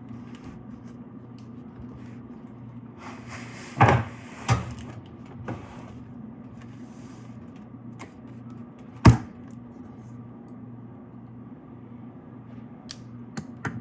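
Cardboard box being handled: a scraping rustle with two knocks about four seconds in, then a single sharp knock, the loudest sound, around nine seconds, over a steady low hum.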